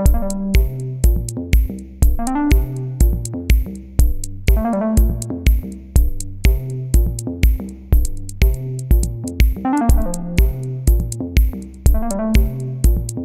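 Electronic background music: a drum-machine beat of about two kicks a second, with a bass line and a synthesizer melody.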